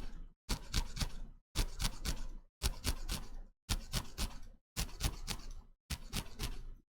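Short clusters of sharp clicks and snips from small handwork, about one cluster a second, each cut off abruptly.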